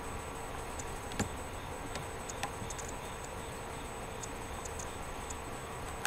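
Steady whirring hum with a faint steady tone, which the owner takes for his laptop's fan. Faint irregular ticking runs through it, with sharper clicks about a second in and again about two and a half seconds in.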